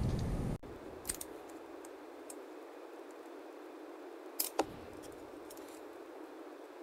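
A few light metallic clicks of a hand tool and small parts on a motorcycle's shift shaft and shifter pawl assembly: one about a second in and a sharper pair near the middle, over low room noise.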